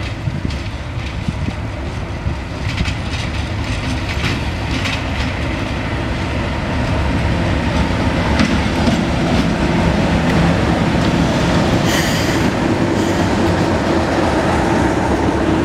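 Class 37 diesel locomotive 37198, with its English Electric V12 engine, approaching and running past close by, its engine drone growing steadily louder. Scattered clicks of the wheels come over the rail joints.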